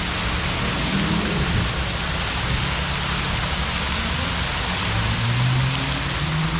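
Steady rushing of water, like a downpour or a waterfall, with a low hum underneath that shifts in pitch about five seconds in.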